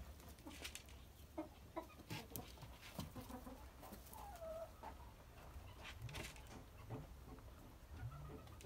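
Faint bird calls of the kind heard around farmyard fowl, one short call about four seconds in and low rising calls near six and eight seconds. Under them are scattered light clicks and rustles of dry hay as a German Giant rabbit shifts about on its hutch floor.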